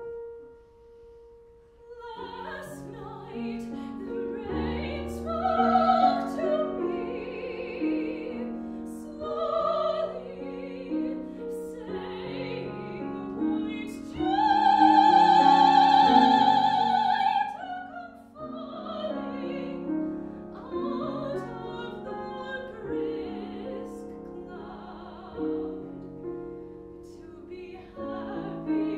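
A woman's classical singing voice performing an art song with grand piano accompaniment. A single piano note sounds first, the voice and piano come in about two seconds later, and near the middle she holds a long, loud high note.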